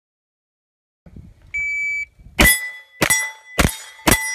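A shot timer gives one short steady beep, then a 9mm AR short-barreled rifle fires four quick shots about half a second apart. Hit steel target plates ring on after the shots.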